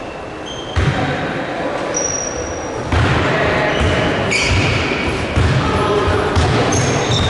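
Basketball being dribbled on an indoor court: a single bounce about a second in, then a steady run of bounces, about two to three a second, from about three seconds in. Short high squeaks and the voices of players and spectators run alongside.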